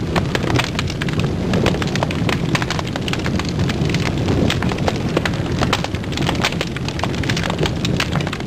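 Crackling fire sound effect: a dense, steady crackle thick with sharp pops over a low rumble.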